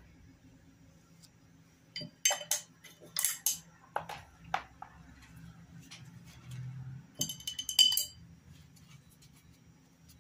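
A paintbrush clinking and knocking against a hard cup as it is rinsed between colours. There is a quick cluster of sharp clinks from about two to four and a half seconds in, and another short cluster around eight seconds.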